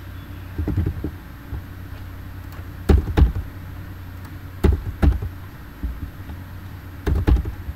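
Computer keyboard keystrokes picked up by a nearby microphone as sharp knocks, mostly in pairs every couple of seconds, over a steady low hum.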